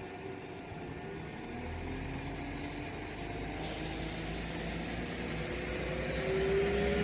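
A diesel train's engine running, with a whine that rises in pitch as it picks up speed. The sound grows steadily louder, with a low rumble coming in about two seconds in.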